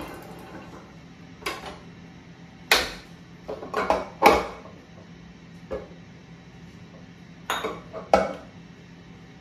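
Stainless-steel stand-mixer bowl and tilted-up beater head being handled: a series of sharp metallic clanks and knocks, the loudest a cluster about three to four and a half seconds in, and two more close together near the end.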